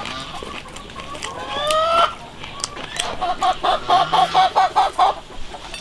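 Chicken calling: a rising squawk, then a fast run of about ten clucks.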